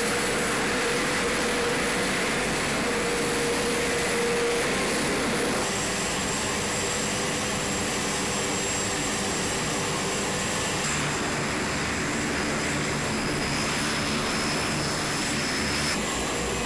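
Aircraft engines running steadily, a dense continuous noise with a high-pitched whine over it. The sound shifts abruptly a few times, about six, eleven and sixteen seconds in.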